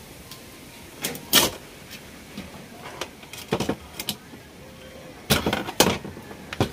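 Scattered sharp clicks and knocks of hands working wires and connectors on the back of an opened LED TV, with the loudest knock about a second and a half in and a cluster of clatter near the end.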